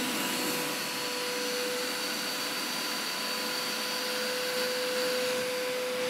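Hoover Power Scrub Elite carpet cleaner's suction motor running steadily with a steady whine and rush of air, as the hand tool on its hose extracts water and dirt from carpet.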